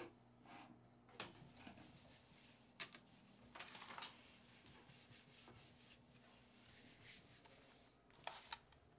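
Faint handling noises in a small room: a few light clicks and a short rustle, with a pair of sharper clicks near the end.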